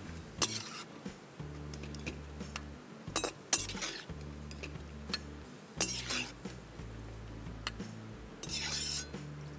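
Metal slotted ladle scooping fried cashews out of ghee in a stainless steel kadai, with a few sharp clinks of metal on metal spread through. Near the end comes a short rattle as the cashews are tipped from the ladle into a bowl.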